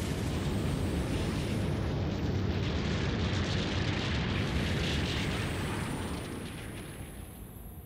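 Jet engines of a hovering VTOL transport aircraft running with a steady, deep roaring noise as their downwash blows up sand. The sound fades away over the last couple of seconds.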